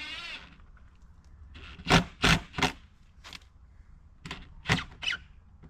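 A pitched, wavering sound cuts off in the first half second, then come about seven sharp knocks in two groups of three or four, the loudest about two seconds in.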